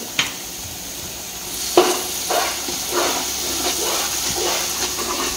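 Tomato-onion masala sizzling in a pot with a steady hiss as a spatula stirs freshly added yogurt into it. The stirring starts about one and a half seconds in, scraping about twice a second, and there is a single sharp tap just after the start.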